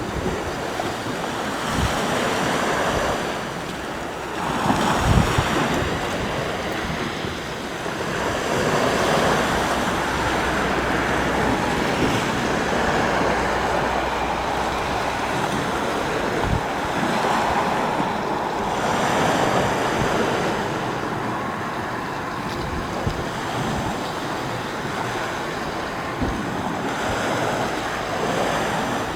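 Sea waves washing onto the shore in a steady rushing surf that swells and eases every few seconds, with wind gusting on the microphone.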